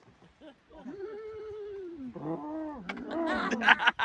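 A man's voice imitating a big animal's call: a long drawn-out low moan that rises and slowly falls away, then a second, louder call that breaks into laughter near the end.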